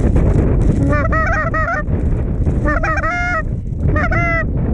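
Goose honks in three short bursts of several notes each, about a second in, around three seconds and near the end, over a steady low rush of wind on the microphone.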